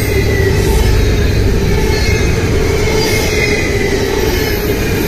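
Double-stack intermodal train's container well cars rolling past close by: a loud, steady rumble of steel wheels on rail.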